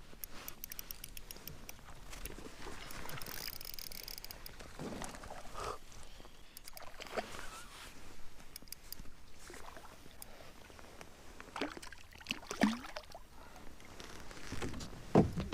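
Scattered light knocks, rustles and small water splashes around a fishing kayak as a just-landed trout is handled. The loudest knocks come about twelve and fifteen seconds in.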